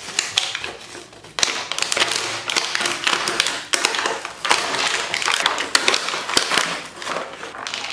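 Thin plastic blister packaging crinkling and crackling as it is pulled and torn off a cardboard backing card, a busy run of sharp crackles that grows loud about a second and a half in.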